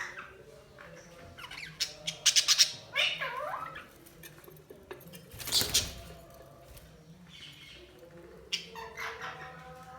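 Budgies chirping and squawking in short irregular bursts. A loud, quick string of sharp calls comes about two seconds in, and another loud burst comes near the middle.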